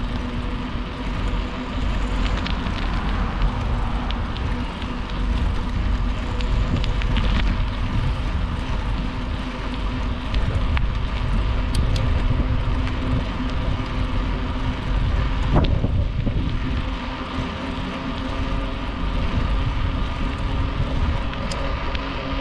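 Wind rumbling on an action camera's microphone while cycling on a paved path, over the hum of the bicycle's tyres on the asphalt, with a few sharp knocks from bumps.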